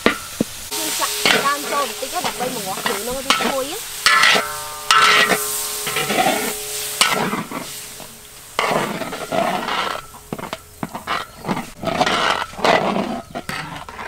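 Metal spatula scraping and stirring food around a large wok in repeated strokes, with the food sizzling.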